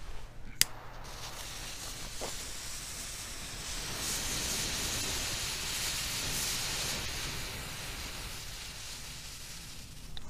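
Homemade potassium nitrate and sugar smoke bomb burning with a steady hiss, which starts just after a sharp click under a second in, swells midway and fades toward the end.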